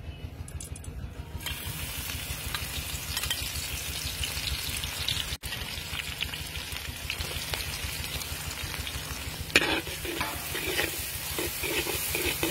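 Chopped red chillies and garlic sizzling and frying in hot oil in a large metal wok; the sizzle starts about a second and a half in. Near the end a metal ladle scrapes and stirs against the wok, with one sharp clank that is the loudest sound.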